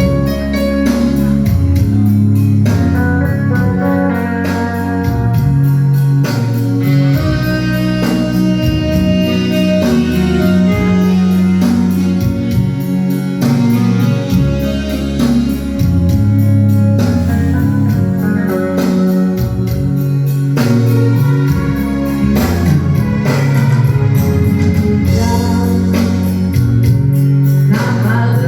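Instrumental music on electronic organ or keyboard, with a strong bass line, held chords and a steady beat.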